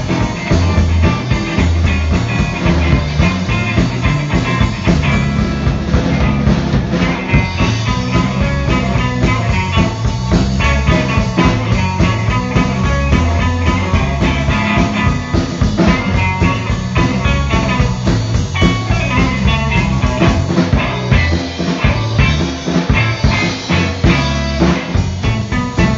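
A live rock band playing an instrumental: electric guitar over bass guitar and a drum kit.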